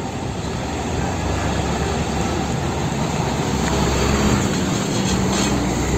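Isuzu diesel roll-off container truck driving past, its engine and tyre noise growing louder as it comes near and loudest about four to five seconds in.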